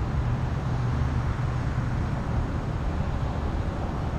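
Steady road and wind noise from a bass boat towed on its trailer at highway speed: a low rumble of tyres and rushing air with no breaks.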